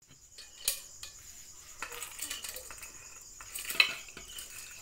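Clinks and knocks of dishes and a cooking pot as cooked crabs and clams are tipped from a bowl onto a plate, the loudest clink a little under four seconds in. Crickets chirr faintly and steadily behind.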